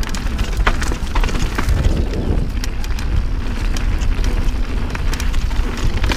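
Mountain bike rolling fast down rocky dirt singletrack: tyres crunching over loose stones, with frequent sharp clicks and knocks from the stones and the bike, over a heavy low rumble of wind on the camera microphone.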